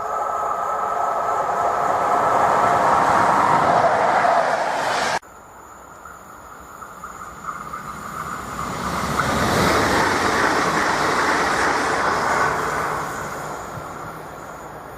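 Train passing by. It cuts off abruptly about five seconds in, then a second train pass-by builds, peaks and fades away.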